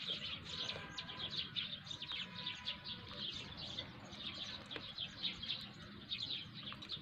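A flock of small birds chirping and twittering continuously, many short overlapping chirps.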